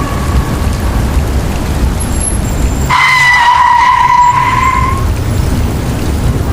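A steady low rumble, with a high squeal that starts about three seconds in, rises slightly in pitch and lasts about two seconds.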